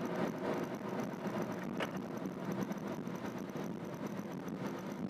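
Cabin noise inside a moving Renault Triber AMT: a steady hum of road, tyre and engine noise with the air conditioning running on its second fan setting, and a light click about two seconds in.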